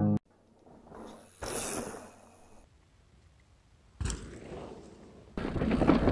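Guitar music cuts off at the start, followed by a mostly quiet stretch with a brief hiss and a short burst of noise about four seconds in. From about five seconds in, a hardtail mountain bike on 27.5-plus tyres rolls over rough sandstone, a loud rattling rumble of tyres and bike.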